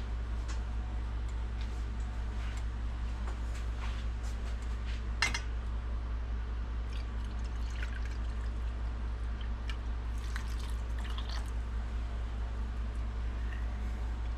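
Vinegar poured from a swing-top glass bottle into a measuring cup and then into a saucepan of brown sugar, with small clicks and one sharper clink about five seconds in. A steady low hum runs underneath.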